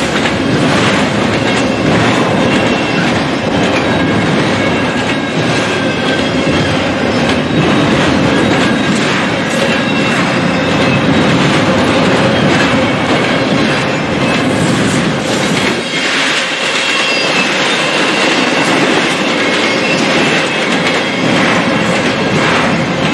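Double-stack intermodal freight train cars rolling past, a steady rumble and clatter of steel wheels on the rails, with a faint thin squeal from the wheels.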